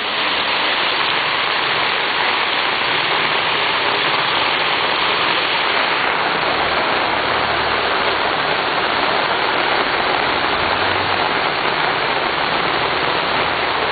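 Heavy rain pouring down, a steady dense hiss with no let-up.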